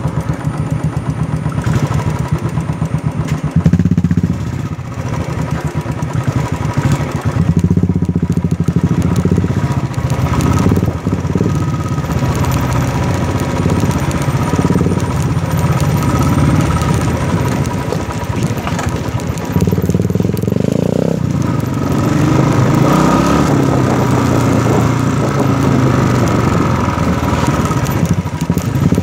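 Motorcycle engine running loud while riding a rough dirt trail, the engine note rising and falling with the throttle every few seconds, with a second motorcycle just ahead.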